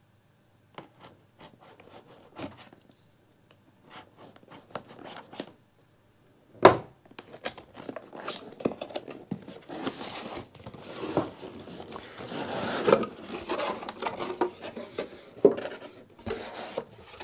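A knife blade slitting the seal sticker on a cardboard box, heard as scattered small clicks and scrapes, with one sharp knock a little before halfway. Then steady scraping and rustling as the sticker is picked at and the cardboard lid is lifted open.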